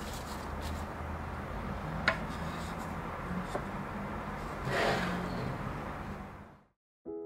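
A wooden storage box being handled on a wooden desk: one sharp click about two seconds in as the lid shuts, then a rubbing swell as the box slides on the desktop. A steady low hum lies underneath, and a piano comes in right at the end.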